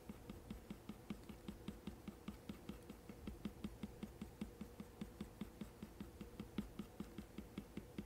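Apple Pencil tip tapping on an iPad Pro's matte screen protector in quick, short strokes, a faint, even run of small ticks at about five a second, over a faint steady hum.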